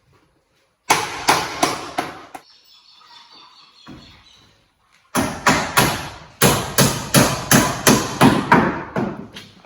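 Hammering on wooden boards: a quick run of about five strikes, a pause, then a longer steady run of about three strikes a second.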